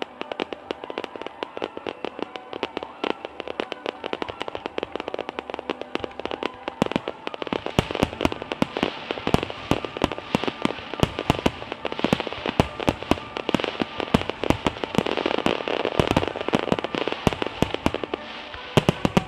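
A fireworks display: a rapid barrage of fireworks bursting in quick succession. The bangs come thicker and louder from about seven seconds in, with one especially loud bang near the end. Music with held notes plays underneath.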